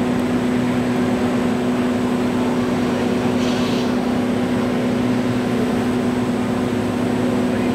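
Eclipse Contour edge bander running with a steady, unchanging motor hum.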